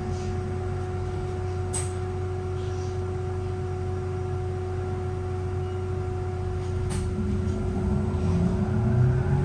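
VDL Citea SLFA-180 hybrid city bus with the weird sound from its battery system: a steady whine held on one pitch over the low drone of the bus. Two sharp clicks come about two and seven seconds in, and near the end the drone swells and rises in pitch as the drive picks up.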